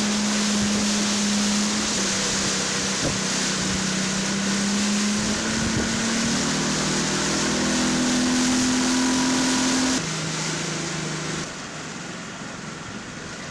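Steady rush of wind and water on an open-air microphone over the low, even hum of a motorboat engine, quieter for the last couple of seconds.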